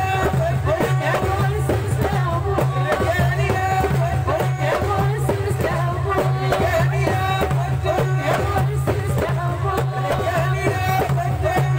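Live Algerian folk music: a voice singing a wavering, ornamented melody over loud, steady drumming.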